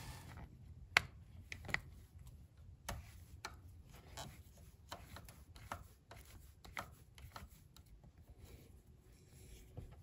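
Faint, scattered clicks and taps of hand tools and metal parts being handled, with two sharper clicks about one and almost two seconds in.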